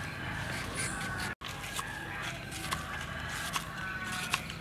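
Small kitchen knife peeling and slicing a green banana on a wooden chopping board: soft scraping of the blade through peel and flesh, with a few sharp taps as the knife meets the board. The sound cuts out for an instant about a second and a half in.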